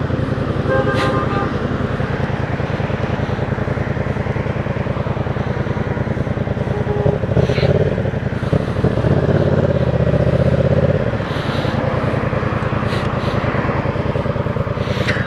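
Yamaha MT-07's parallel-twin engine running in traffic, with steady wind and road noise. A short horn toot sounds about a second in.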